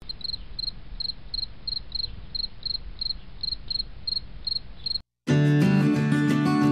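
A cricket chirping in an even rhythm, about three chirps a second, over a low background rumble. It cuts off about five seconds in, and after a short silence strummed acoustic guitar music starts.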